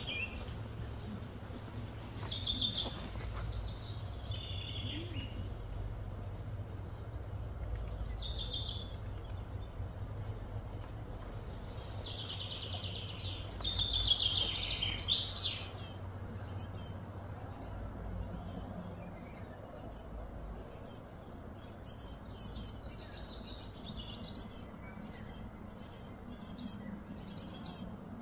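Wild birds chirping and singing in short scattered phrases, busiest about halfway through, with a low steady hum underneath.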